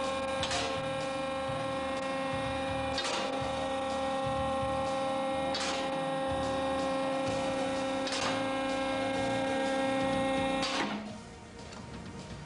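Garage car lift's electric motor whining steadily as it raises a car, with a short clack about every two and a half seconds. The motor stops about eleven seconds in.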